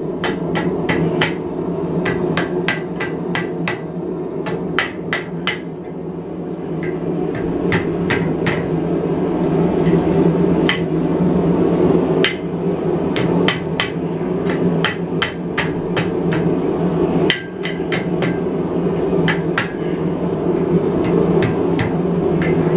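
Hammer blows on hot steel bars as they are bent around a steel mandrel in a vise, coming in irregular runs of sharp metallic strikes, thicker in the first few seconds and more spaced out later, over a steady drone.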